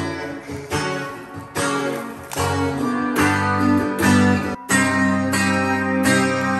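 Electric guitar played clean through a small practice amp: picked chords and single notes, struck about once or twice a second and left to ring. Near the end it breaks off sharply for a moment, then resumes with held notes.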